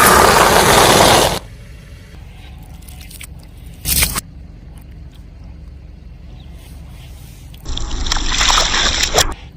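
Car tyre rolling over and crushing objects, two bursts of crushing and squishing noise each lasting about a second and a half, with a short knock about four seconds in between.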